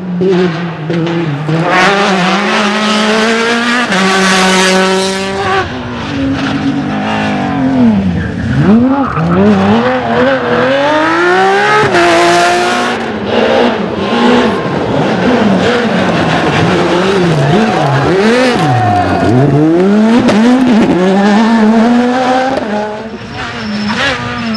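Rally car engines under hard acceleration, the revs climbing in steps through the gears and dropping sharply several times as the cars lift off and brake, then picking up again.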